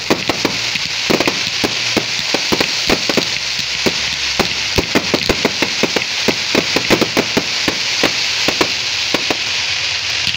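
Fireworks display: many sharp, irregular bangs from bursting shells, several a second, over a continuous crackling hiss.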